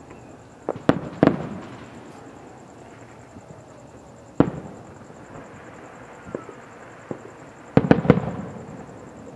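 Aerial fireworks shells bursting: a few booms in the first second and a half, a single loud boom in the middle, then a quick cluster of several bangs near the end. Each burst is followed by a rumbling echo.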